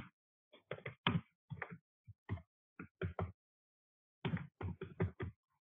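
Computer keyboard keys clicking during typing, in two irregular runs of keystrokes with a pause of about a second between them.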